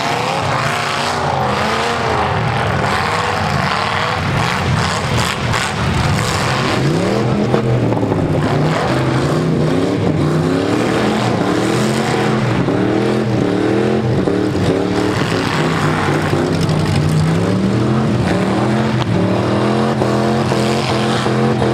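Full-size V8 demolition derby car engines revving hard, their pitch climbing and falling over and over as the cars back up and charge.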